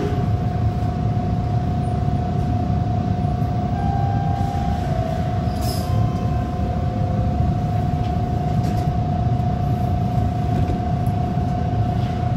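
A TTC Bombardier T1 subway train standing at a station platform, heard from inside the front car: a steady low rumble with a constant whine over it. There is a brief extra tone about four seconds in and a short click near the middle.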